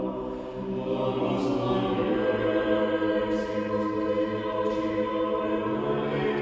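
Choir singing a slow chant in long held chords, with the hiss of sung consonants now and then.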